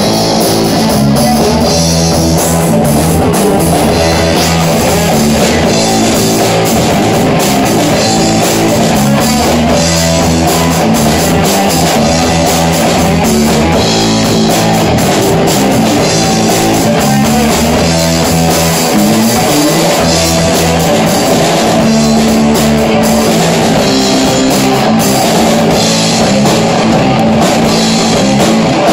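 Live rock band playing loudly: two electric guitars, electric bass and drum kit.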